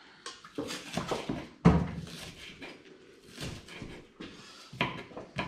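Kitchen knife chopping red onion on a wooden cutting board: irregular knocks of the blade on the board, the loudest about a second and a half in.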